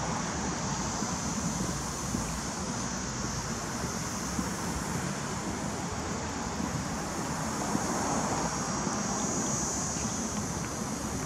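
Steady outdoor road-traffic noise with a little wind on the microphone, swelling slightly about eight seconds in.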